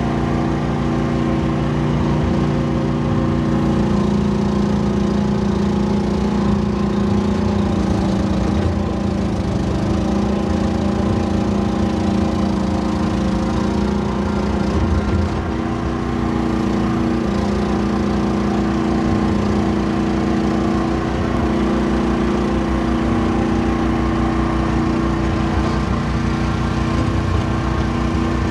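Small excavator's engine running steadily under working load, its pitch shifting slightly now and then as the machine works.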